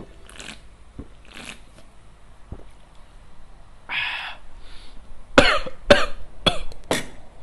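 A man coughing from the burn of a ghost-pepper chilli cola: heavy breaths about once a second, a raspy breath out about halfway, then four sharp coughs in quick succession near the end.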